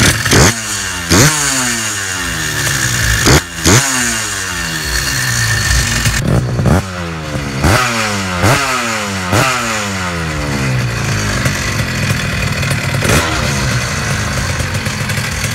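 Two-stroke Minarelli motorcycle engine being blipped again and again, about a dozen times. Each blip sends the revs shooting up sharply, then they fall away. The rises come close together in the first ten seconds and grow sparser towards the end.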